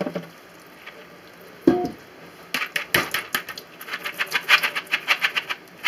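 Plastic colander of soaked navy beans being handled at a stainless steel sink: a single knock about two seconds in, then a quick, irregular run of rattling clicks as the colander is shaken and tilted to drain the beans.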